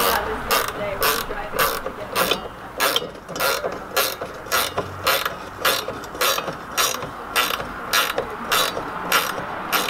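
Hand ratchet clicking at an even, steady rhythm of just under two clicks a second, as the tool is worked back and forth to drive a fastener into a wooden fence.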